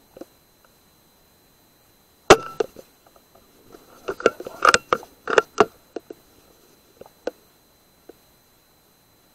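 A sharp knock, then a quick run of clicks and knocks from handling the scoped air rifle as it is moved about.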